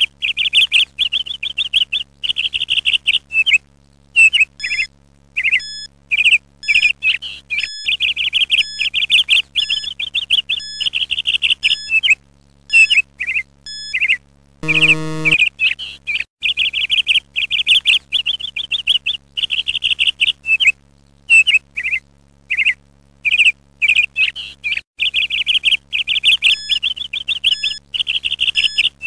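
Small songbirds chirping and trilling over and over in quick bouts, a bird-song background track. About halfway through, a single short low buzzer tone sounds as the quiz countdown runs out.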